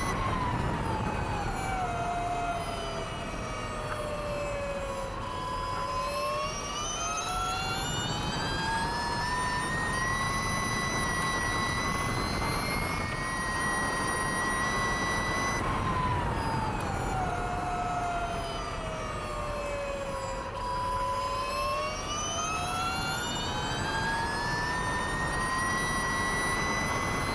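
Ducati V21L MotoE electric racing motorcycle's motor whining at racing speed. The whine falls in pitch twice as the bike slows for corners and rises again as it accelerates, over a steady rushing noise.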